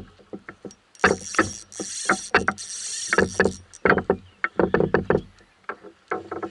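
Irregular knocks and clatter in a canoe while a small flathead is fought in on a lure, with a stretch of high hissing about a second in.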